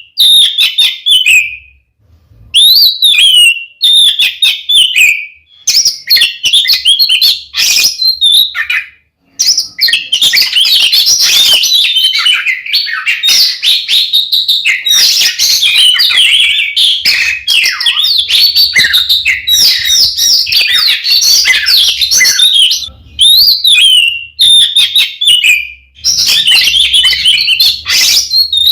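Oriental magpie-robin (kacer) singing loudly. It starts with short phrases that each open on a sharply falling whistle, with pauses between them, then from about ten seconds in runs into a continuous, fast, varied song.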